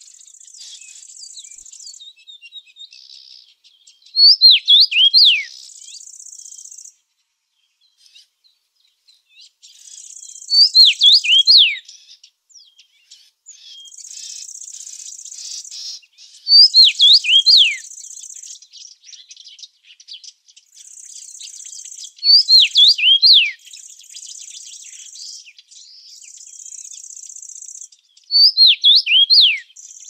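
A songbird singing a short phrase of several quick down-slurred whistles, five times, about every six seconds. Between the phrases a high, steady insect trill starts and stops in stretches of a second or two.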